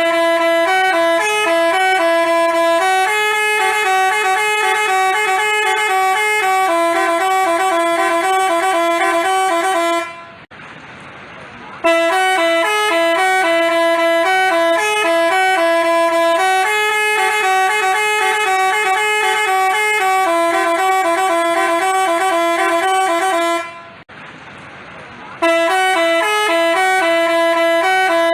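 Multi-tone Basuri 'telolet' bus horn playing a repeating jingle of short stepped notes. It breaks off twice for about a second and a half, about ten seconds in and again near the end, then starts the tune again.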